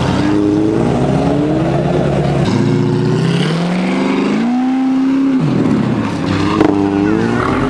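Autocross cars accelerating hard through the cone course: the engine note climbs in pitch twice, drops suddenly about five and a half seconds in as the driver lifts or shifts, then climbs again near the end.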